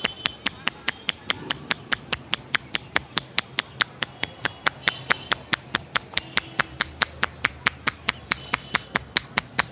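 Hands slapping on the head in a barber's percussive head massage: sharp, evenly spaced claps at about five a second.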